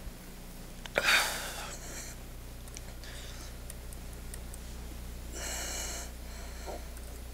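A person's breathing close to a microphone: a loud breath just after a sharp click about a second in, and a softer one about two thirds of the way through, with a few faint clicks between them over a steady low electrical hum.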